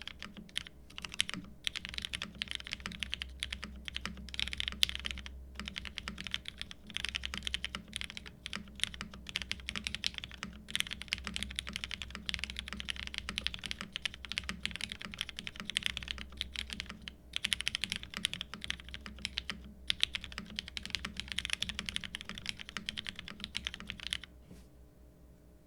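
Typing on a Geonworks Frog TKL mechanical keyboard with lubed Cherry MX Black linear switches, a polycarbonate plate and GMK keycaps. It is a dense, fast stream of keystrokes with a few brief pauses, and it stops near the end.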